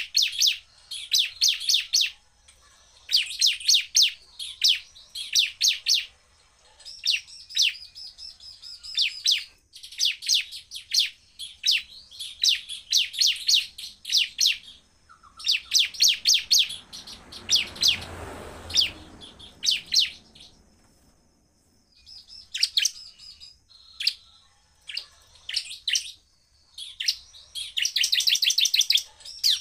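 Bar-winged prinia (ciblek) singing hard: bursts of very fast, sharp repeated chirps, each about a second long with short pauses between. This is the full-power rapid 'shooting' song used to provoke other prinias. A short rustle comes about two-thirds of the way through.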